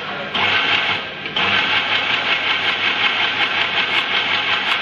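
Toroidal coil winding machine running, its shuttle ring spinning to wrap copper wire onto a toroidal core: a steady machine noise with a fast, even pulse. It dips twice in the first second and a half, then runs on evenly.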